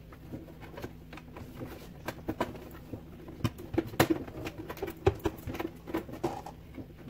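Irregular plastic clicks and knocks as the top housing of a Saeco Xsmall espresso machine is worked loose by hand, the loudest knock about four seconds in.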